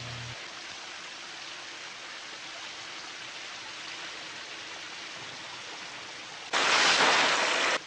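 A shower spray running steadily, heard on an old film soundtrack. About six and a half seconds in, a much louder rush of noise cuts in for just over a second, then stops suddenly.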